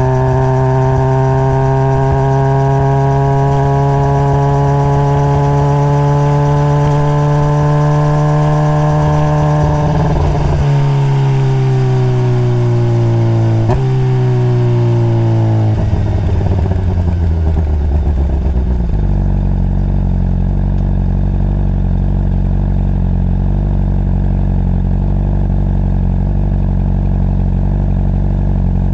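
Honda CBR600RR's inline-four engine pulling steadily, its pitch slowly climbing for about ten seconds. It then comes off the throttle, the pitch falling in steps with a click partway down. For the last ten seconds it settles into a steady idle.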